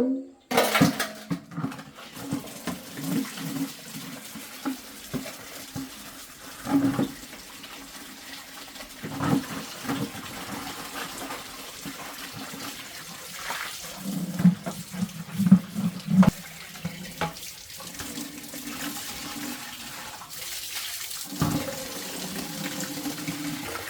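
Water running steadily from a tap into a bucket, with occasional knocks and clunks as the bucket and fittings are handled.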